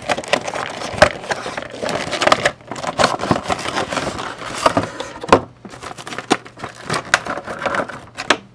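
Clear plastic blister packaging being pulled out of a cardboard collection box: irregular crackling and sharp clicks of stiff plastic flexing and scraping against cardboard.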